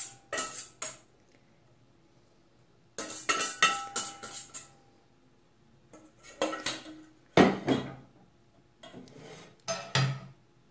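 Wire whisk scraping and clinking against a stainless steel mixing bowl in several short bouts, as the last of a batter is scraped out. Near the end the whisk is set down on a metal frying pan.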